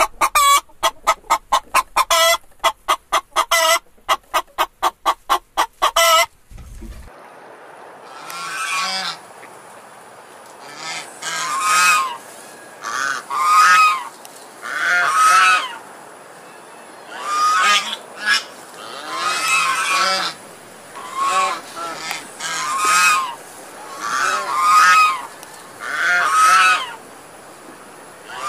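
Chickens clucking in a fast, even run of about five notes a second, which stops about six seconds in. After a short gap, geese honk over and over, a honk or a quick pair of honks every second or two.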